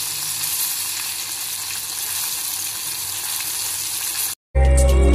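Breaded chicken lollipops deep-frying in hot oil, a steady sizzle. It cuts off suddenly about four seconds in, and music starts just after.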